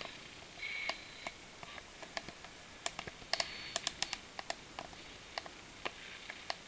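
Six-transistor medium-wave AM radio kit receiving static: irregular sharp crackles over a faint hiss, with a couple of brief high whistles.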